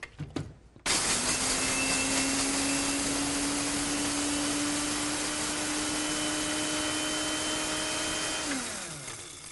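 Small electric spice grinder grinding cardamom pods: the motor starts abruptly about a second in and runs steadily, then winds down near the end, its pitch falling as it stops.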